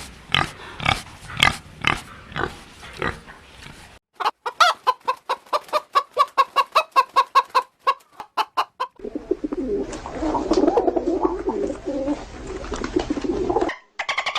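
Farm animal calls in three cut clips: a run of calls about two a second, then quick rapid clucking like a hen, then a dense, lower jumble of many animals calling at once that stops shortly before the end.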